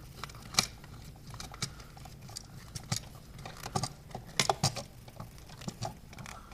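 Irregular small clicks and ticks of a screwdriver turning a terminal screw on a USB wall outlet, tightening it down on the neutral wires, with metal and plastic parts tapping as the outlet is handled.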